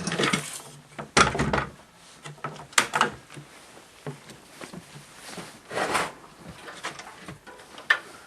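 Handling noises from work on the generator: a series of clunks, knocks and scrapes of parts and tools being moved, the loudest knock about a second in and a sharp click near the end. The engine is not running.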